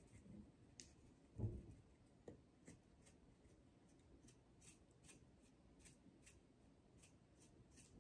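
Dried parsley flakes shaken from a spice shaker, a run of faint quick clicks about three a second, with one thump about a second and a half in.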